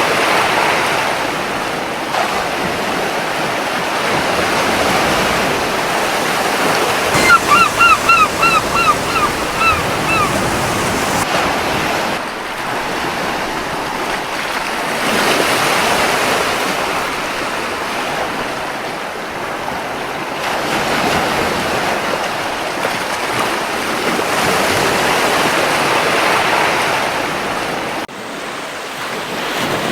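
Gentle sea waves washing onto a beach, swelling and easing every few seconds. About seven seconds in, a seagull gives a quick series of about eight short calls.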